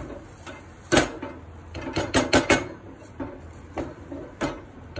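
Wooden spoon stirring cooked rice in a metal pot, knocking against the pot's sides and rim several times at uneven intervals, with soft rustling of the rice between knocks.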